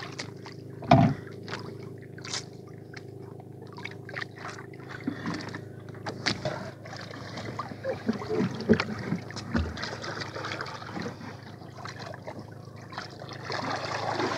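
Handling knocks and clicks aboard a small wooden outrigger boat as caught octopus are dealt with at a plastic tub, with one louder thump about a second in. A faint steady hum runs underneath.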